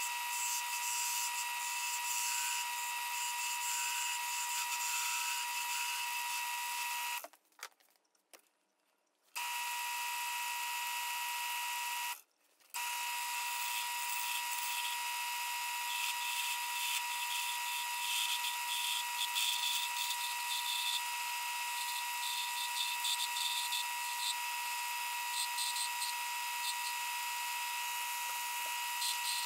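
Wood lathe running with a steady high motor whine while a small wooden chess piece spins on it, with a rough hiss of the wood being worked against it. The sound cuts out to silence for about two seconds a quarter of the way in, and again briefly a few seconds later.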